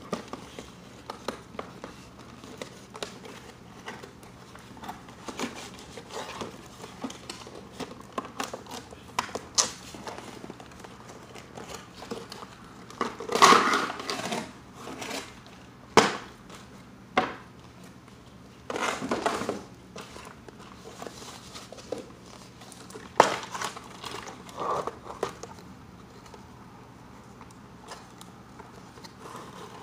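Cardboard toy box and its packaging being handled and unpacked by hand: crinkling and rustling with scattered clicks and taps, and louder bursts of rustling about halfway through and again later.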